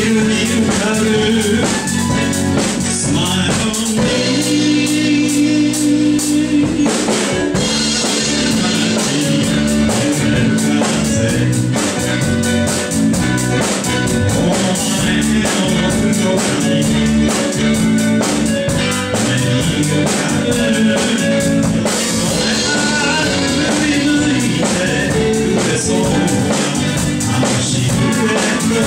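A rock band playing live: drum kit, electric bass, electronic keyboard and electric guitar, with a sung vocal. About four seconds in, the band holds a sustained chord for a few seconds before the drums drive on again.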